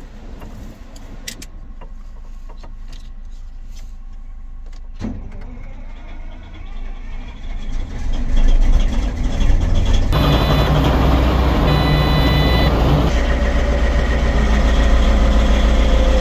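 Caterpillar 992 wheel loader's diesel engine starting, heard from inside the cab: a few light clicks, then the engine cranks, catches about eight seconds in and settles into a loud steady run. A high pulsing tone sounds for a couple of seconds about ten seconds in.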